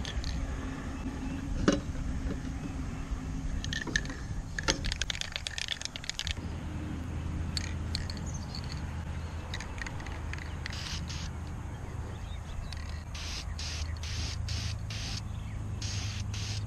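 Krylon aerosol spray paint can hissing in short bursts, quickly repeated near the end, as metallic aluminum paint goes onto a metal box. A steady low hum runs underneath from about a third of the way in.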